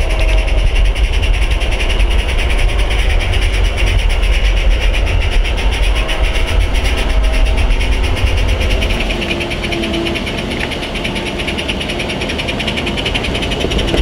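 A train running, with a steady low rumble that drops away about nine seconds in and a few brief steady tones over it.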